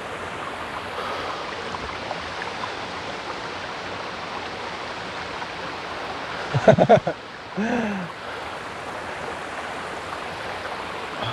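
Steady rush of a waterfall's falling water. About two-thirds of the way through, a short pitched voice sound cuts in twice over the rush.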